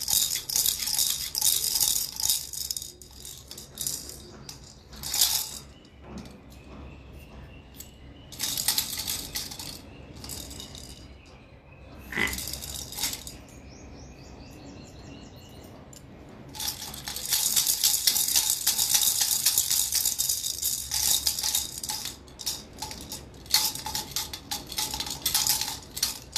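Plastic baby rattle toys shaken in bursts of rapid rattling, with quieter pauses between: a few short shakes, then a long spell of shaking in the second half.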